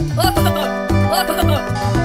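Upbeat background music with a steady beat of about two a second and a melody of short notes.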